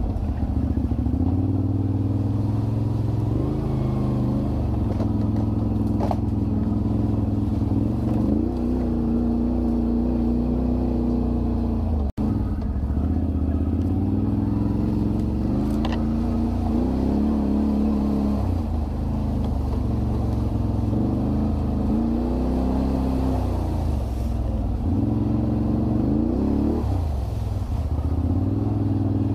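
Quad ATV engines running and revving, their pitch rising and falling repeatedly as the riders work the throttle, with a momentary break in the sound about twelve seconds in.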